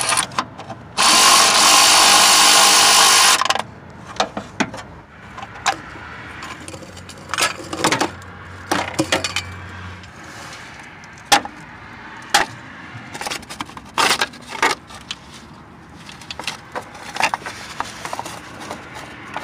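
A cordless power tool spins a 13mm socket for about two and a half seconds, about a second in, running a nut off. After it come scattered sharp clicks and clinks of metal tools and parts being handled.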